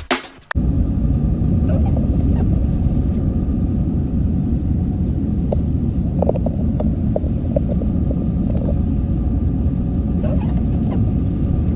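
Steady low road and engine rumble heard from inside a moving vehicle's cabin, starting about half a second in, with a few faint clicks partway through.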